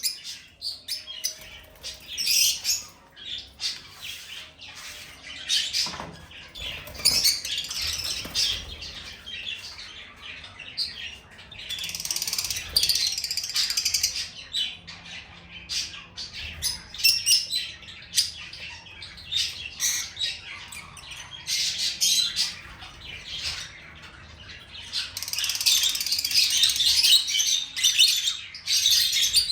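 Lovebird chirping and twittering in rapid, high-pitched runs with occasional squawks, pausing briefly between bouts.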